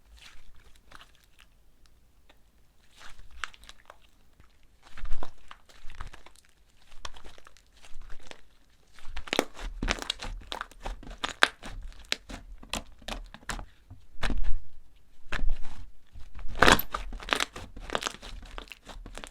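Crunchy dried air-dry clay crackling and breaking as it is crushed by hand: scattered snaps at first, then dense runs of crackling about halfway through and again near the end.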